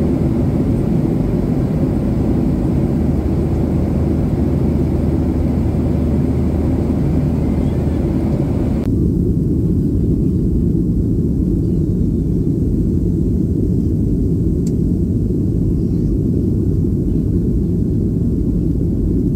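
Steady rumble of a jet airliner's engines and airflow heard inside the cabin in flight. About halfway through, the hiss on top suddenly drops away, leaving a deeper, duller rumble.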